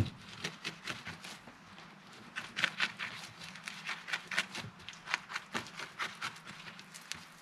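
Irregular light clicks and taps, several a second, of cooking utensils and containers being handled, with a busier run in the middle.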